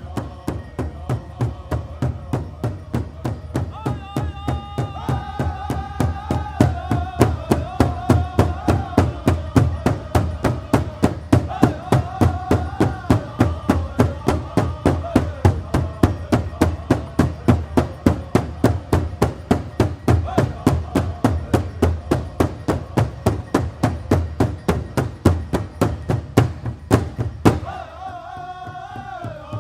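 Powwow drum group: several singers in unison over a big powwow drum struck together at a fast, steady beat, with the singing climbing higher about four seconds in. Two harder strikes stand out near the end.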